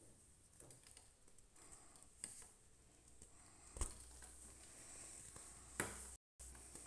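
Molded block of compacted baking soda crumbled in the hands: faint soft crunching and trickling powder, with sharper crunches about two, four and six seconds in, the loudest near four and six seconds. The sound cuts out for a moment just after six seconds.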